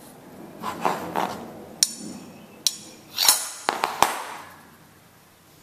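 A claw hammer giving a few light taps, four separate knocks, to a flat metal tapping tool set against the edge of a vinyl click plank, with handling and scraping noise between. The plank is being nudged in to close the seam and line its edge up with the next board.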